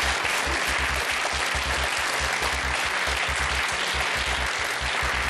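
Studio audience applauding a correct answer, with the game show's music bed underneath, a steady low beat.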